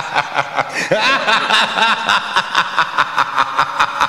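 Fairground ride jingle: a recorded, sampled laugh, a run of short cackles about a second in, over a fast electronic beat of about four strokes a second.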